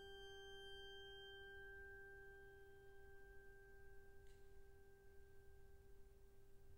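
The percussion orchestra's final sustained chord dying away, very faint: the higher notes fade out within about two seconds, leaving a lower ringing tone that lingers. A faint tick about four seconds in.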